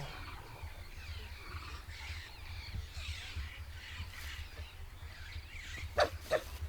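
High, wavering chirping and squealing animal calls over a low steady rumble, followed by a few sharp clicks about six seconds in.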